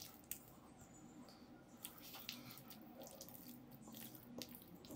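Faint, irregular wet squelches and clicks of raw prawns being mixed by hand in a sticky egg and cornflour marinade.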